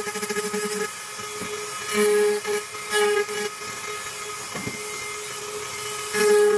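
Flex-shaft rotary tool whining steadily while its bit engraves a plastic tail-light lens. It gets louder and grittier in short spells, about two, three and six seconds in, as the bit bites into the lens.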